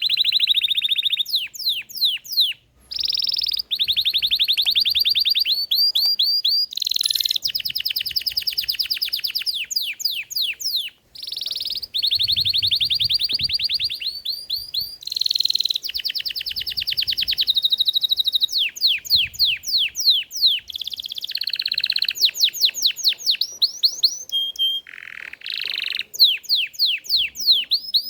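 Belgian canary singing continuously: long rolling trills of fast repeated notes, runs of quick downward-sweeping whistles, and a few short held tones, with only two brief breaks.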